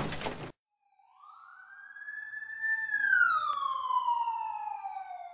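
The tail of a loud crash sound effect, glass breaking, cuts off about half a second in. Then a single siren call rises over about a second, holds, and falls slowly as it fades out.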